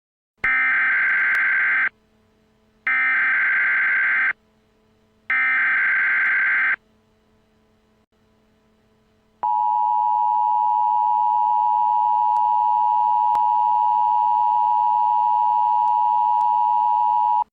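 Emergency Alert System tones. First come three identical data bursts of the digital alert header, each about a second and a half long and about a second apart. After a pause of about two and a half seconds comes a steady attention tone lasting about eight seconds.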